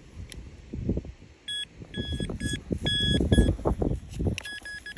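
Handheld metal-detecting pinpointer beeping at one steady pitch in short and longer pulses as it is worked through loose dug soil, signalling metal close to its tip. The beeps start about a second and a half in, break off briefly and come back near the end, over low scraping and rustling of soil.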